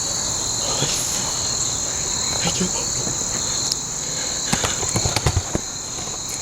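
A steady, high-pitched insect chorus, crickets trilling without a break. About four and a half seconds in, a quick run of short sharp knocks and thumps rises over it.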